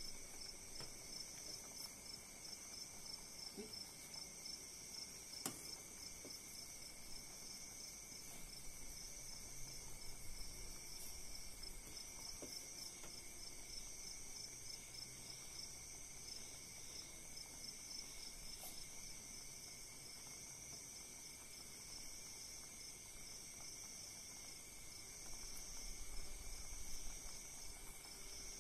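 Steady high-pitched insect trilling with an even pulse, and a couple of faint clicks.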